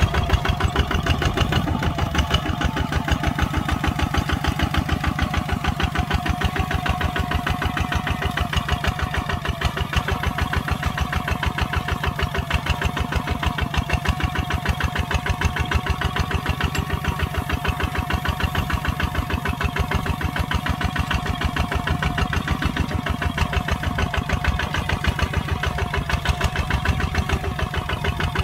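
Kubota ZT140 single-cylinder diesel engine running steadily while plowing, with a fast, even beat of firing pulses.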